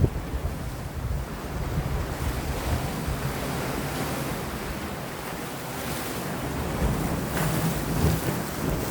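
Sea waves washing against rocks, with wind gusting on the microphone. A wave breaks a little louder near the end.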